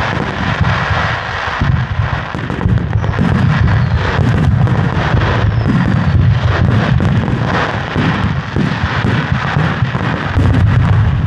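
Barrage of Japanese aerial firework shells bursting in quick succession, their booms overlapping into a continuous rumble with sharp cracks all through.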